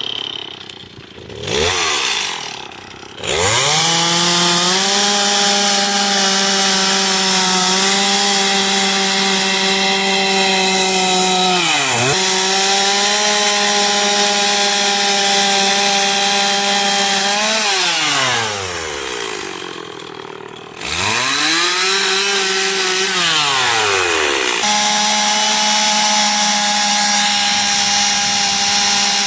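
Gas two-stroke chainsaw revved to full throttle and cutting into a wooden log carving. The engine pitch holds steady at high speed and dips briefly about twelve seconds in. It falls toward idle for a few seconds around eighteen seconds in, then revs up again.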